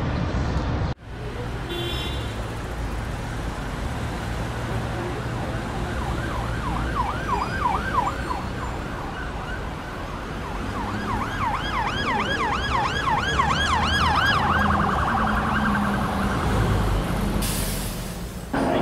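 Emergency vehicle siren sweeping quickly up and down in pitch, several times a second, over a steady rumble of city traffic. The siren starts about six seconds in and stops a few seconds before the end, followed by a brief rushing noise.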